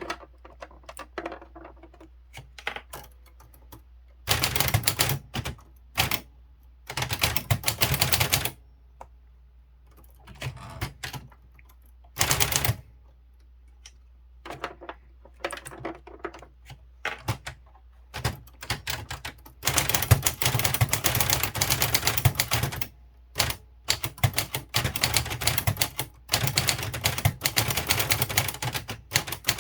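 Kyungbang Clover Top Star 10S manual typewriter being typed on: runs of rapid key and typebar clacks, several seconds at a time, broken by pauses with only a few scattered strikes.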